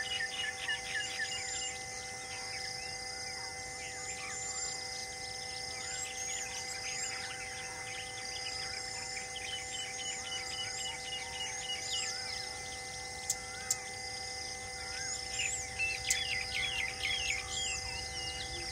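A chorus of small birds chirping and calling, with many short quick notes throughout. Steady sustained tones run underneath, and there are two sharp clicks a little over two-thirds of the way through.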